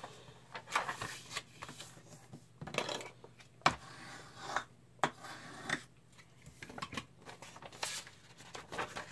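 Printed sheets of paper being folded, creased and stacked into a booklet by hand: irregular rustles, swishes and scrapes of paper against paper and the desk.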